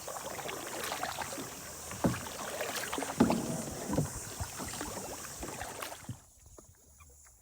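Kayak paddling: water splashing and swishing with the paddle strokes, with a few sharp knocks. The sound drops away abruptly about six seconds in.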